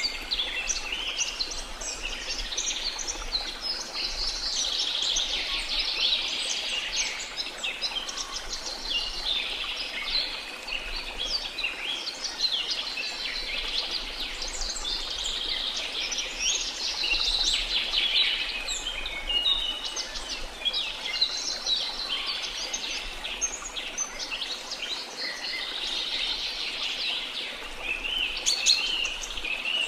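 A dense chorus of many birds chirping and trilling without a break, over a fainter steady rush of waterfall water.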